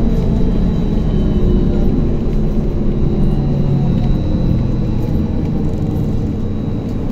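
Cabin noise of a trolleybus in motion: the steady rumble of tyres and running gear on the road, with a thin steady high whine above it.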